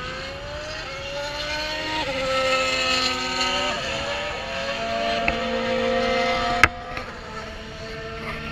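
Racing engines at full throttle on the circuit, several at once, each pitch rising and then dropping suddenly as the riders or drivers shift up through the gears. A single sharp click about six and a half seconds in.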